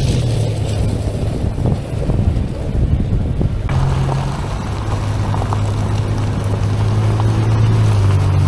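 Toyota 4Runner driving on a dirt road: a steady low engine drone with road and wind noise. The sound changes abruptly between two driving shots about three and a half seconds in.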